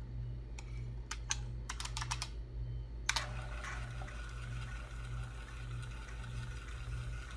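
About six keystrokes on a computer keyboard typing a short DOS command and Enter, then about three seconds in the floppy drive starts with a clunk and runs with a steady whir as it reads the program from diskette. A low steady hum from the computer lies underneath.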